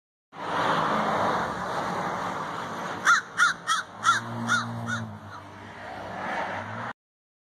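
A crow cawing six times in quick succession, starting about three seconds in. Under it runs the rush of passing road traffic, loudest at the start.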